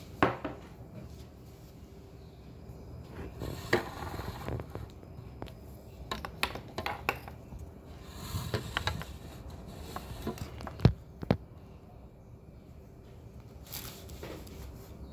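Handling of tableware and paper food wrapping at a table: scattered clinks and knocks of a bowl and dishes with scraping and paper rustling, the loudest two sharp knocks close together about eleven seconds in.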